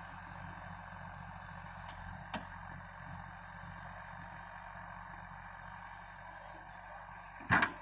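JCB backhoe loader's diesel engine running steadily at a distance while it works the soil. There is a faint click a couple of seconds in and a loud, sharp knock near the end.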